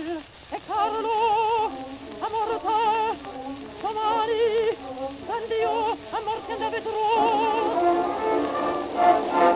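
Old gramophone recording of a contralto singing an operatic piece in a bright tone, held notes with a quick, even vibrato in short phrases. The recording carries no deep bass.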